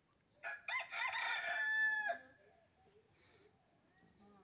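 A rooster crowing once, for about a second and a half, ending on a long held note.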